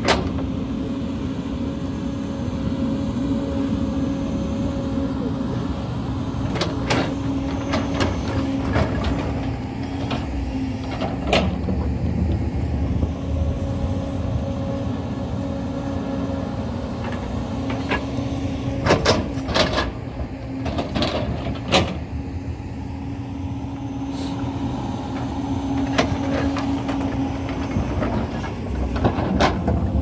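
JCB excavator's diesel engine running steadily under load, while its steel bucket scrapes and knocks against earth and broken rock as it cuts and smooths the slope. The knocks are sharp and scattered, with a cluster of them about two-thirds of the way through.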